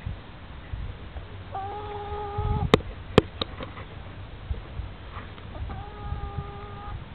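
Chicken calling twice, each a long, steady, level call lasting about a second, one about a second and a half in and one near the end. Two sharp clicks come in between and are the loudest sounds.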